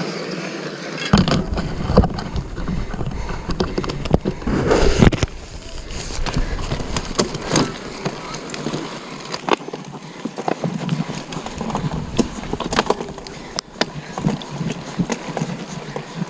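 Mountain bike ridden over rough trail, heard from the rider's own camera: steady noise of tyres and air cut by many sharp rattles and knocks from the bike, with a heavy low rumble between about one and five seconds in.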